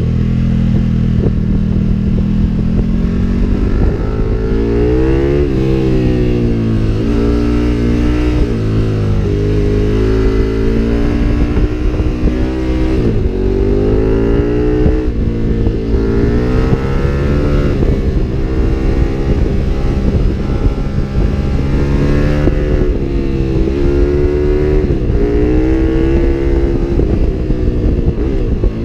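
KTM 1290 Super Duke R's V-twin engine through an Akrapovic exhaust, heard on board while riding. The revs climb and drop sharply again and again as the bike accelerates through the gears and rolls off for corners.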